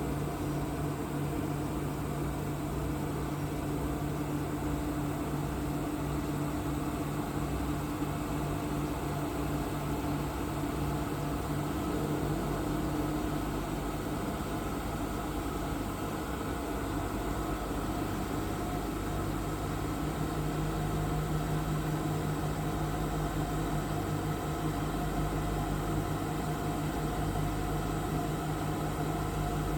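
Mecal MC 304 CNC machining centre running under power: a steady mechanical hum with an even hiss, its low tone shifting slightly in pitch about twelve seconds in and again about twenty seconds in.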